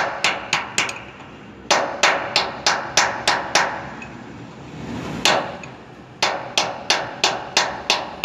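A hammer tapping the large hub nut of a tanker trailer wheel round to tighten it over the freshly greased bearings: runs of quick, light blows at about four a second, broken by pauses, with a single blow in the middle.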